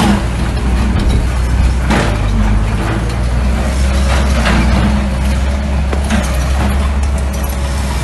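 Mini bulldozer's diesel engine running steadily, with a few short clanks now and then.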